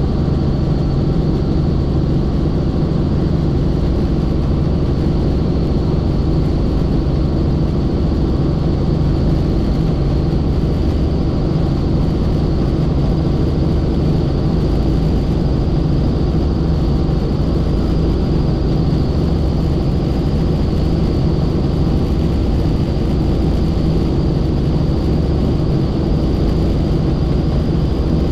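Helicopter in flight: a steady, loud drone of rotor and turbine engine, with a thin high whine held over it.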